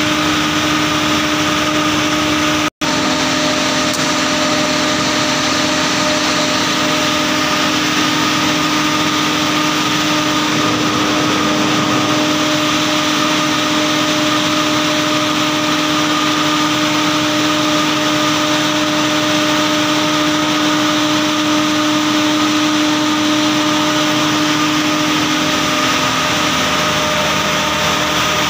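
Diesel generator set running at a steady speed, a constant even machine hum, broken by a split-second gap about three seconds in.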